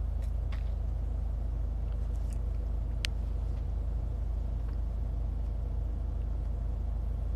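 Steady low rumble inside a parked car, with one sharp click about three seconds in.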